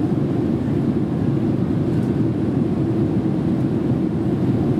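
Steady low drone inside the cabin of a Boeing 787-8 airliner in flight, made up of engine and airflow noise as heard from a rear economy seat.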